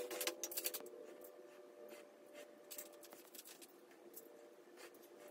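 Faint handling noise: a quick run of small clicks and scratches in the first half second, then sparse quieter clicks, over a faint steady hum.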